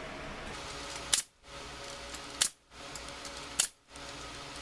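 Pneumatic brad nailer firing three times, about a second apart, driving nails through a wooden spacer bar into the wine rack rails.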